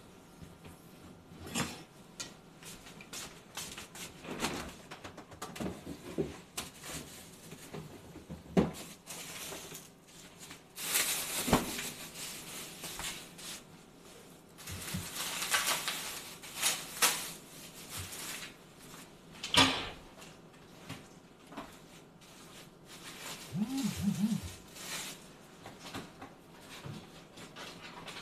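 Kitchen clatter: scattered knocks and clicks of utensils and dishes being handled and set down, with a few short hissing stretches, heard from across the room.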